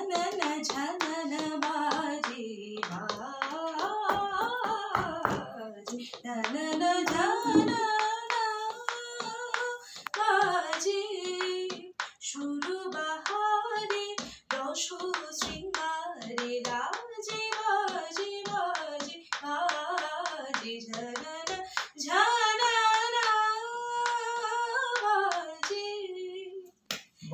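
A woman's voice singing a song unaccompanied in long, wavering phrases, with hands clapping along; the singing stops near the end.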